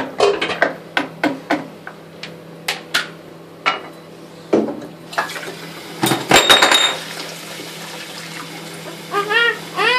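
Dishes and cutlery clinking and knocking against each other and the stainless steel sink as a small child scrubs them with a sponge, in many short sharp knocks with a louder clatter past the middle. A brief voice sounds near the end.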